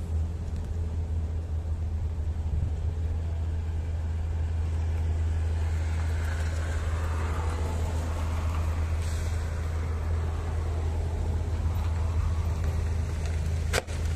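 Daewoo Matiz engine idling steadily with an even low hum. There is a sharp click near the end.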